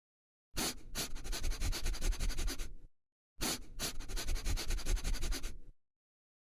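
A rough scratching, rubbing noise made of many rapid ticks, heard in two bursts of about two and a half seconds each with a short silent gap between them.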